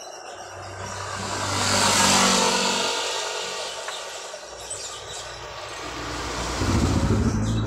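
Road vehicles passing by: one swells up and fades about two seconds in, and a second, with a deeper engine hum, passes near the end.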